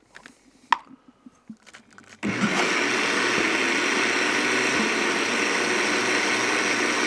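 A few faint clicks, then a countertop blender switches on about two seconds in and runs at a steady high speed, puréeing smoked cauliflower soup in its plastic jug.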